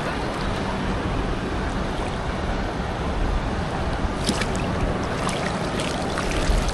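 Steady rush of ocean surf and water around a wader, with a low rumble of wind on the microphone. A few short, sharp clicks from about four seconds in.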